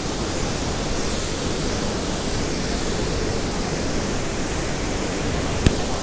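Waterfall rushing: a steady, even noise of falling water, with a single sharp click near the end.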